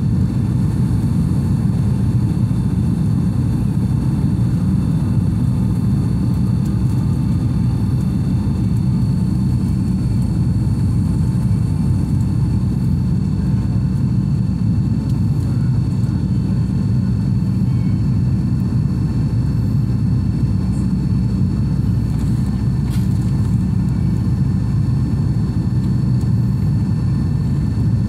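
Boeing 757 jet engines at takeoff thrust, heard inside the cabin over the wing: a loud, steady low rumble as the airliner lifts off and climbs.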